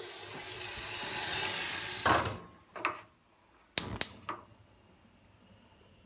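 Tap water running into a saucepan, shutting off about two and a half seconds in, followed by a few sharp clicks and knocks.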